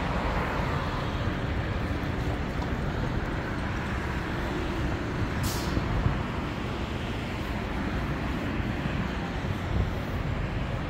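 Steady city-street traffic noise: the continuous rumble of vehicles passing on a busy avenue, with a short sharp hiss about halfway through.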